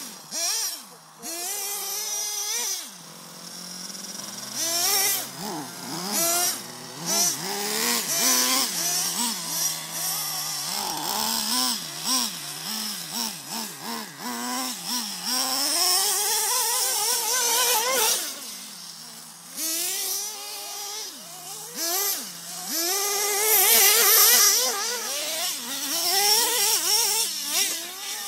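Small nitro engine of a Traxxas RC trophy truck driving, its pitch rising and falling again and again as the throttle is worked.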